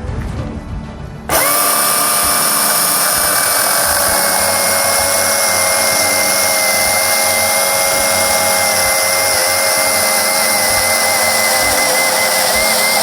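Milwaukee M18 FUEL 16-inch cordless chainsaw with a brushless motor, starting about a second in and running at full speed with a steady high whine, most likely cutting through a 6x6 wooden post. Its pitch dips slightly a few seconds in and wavers near the end.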